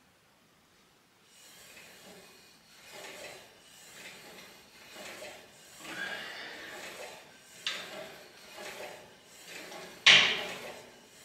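Plate-loaded cable pulley with a rope attachment worked through triceps pushdown reps: the cable rasps over the pulleys about once a second as the weight goes up and down. There is a sharp knock near the eight-second mark and a louder clank about ten seconds in.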